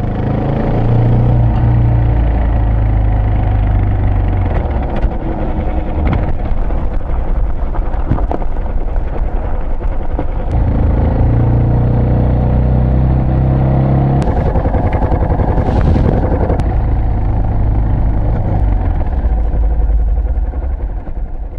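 Yamaha Serow's single-cylinder engine running under way, its pitch rising and falling several times with throttle and gear changes.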